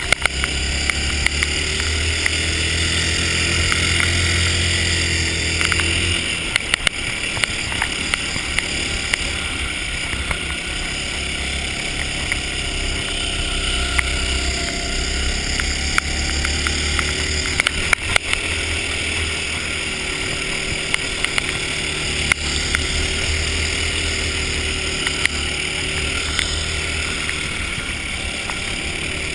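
Ice go-kart engine running under the driver, its pitch rising and falling as the kart speeds up and slows through the corners; the low rumble eases off about six seconds in, then comes back.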